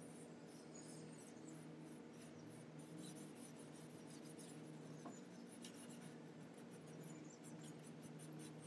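Faint cloth rag rubbing gel stain onto a pine wood lid: a quick run of short, scratchy wiping strokes over a low steady hum.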